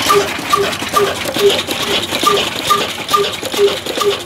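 Old Ruston & Hornsby horizontal single-cylinder diesel engine running, its valve gear and fuel pump clicking and rattling. A short pitched squeak-like note repeats about twice a second in time with the engine's slow beat.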